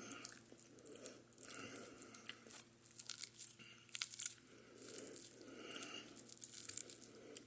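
Biting into and chewing toast topped with egg yolk: a run of faint, crisp crunches with wet mouth sounds between them.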